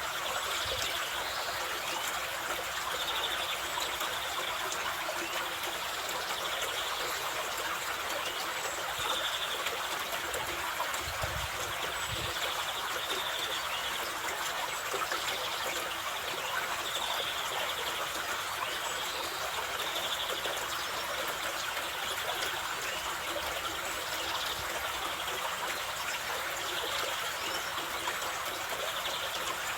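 Mountain river water rushing in a steady, even noise, with a brief low rumble about eleven seconds in.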